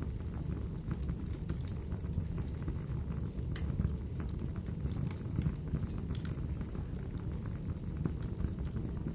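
Crackling wood fire: a steady low rumble of burning wood with scattered sharp pops and snaps.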